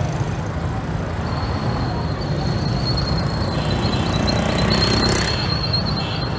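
Road traffic noise: a steady low rumble, with a thin high-pitched squeal that starts about a second in and stops just before the end.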